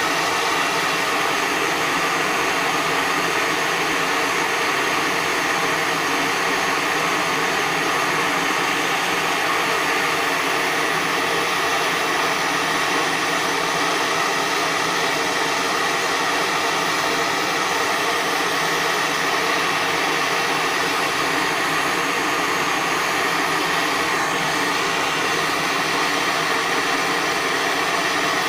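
MAPP gas torch burning steadily, a continuous even rush of flame as it heats a crucible of silver and tin that is being melted into solder.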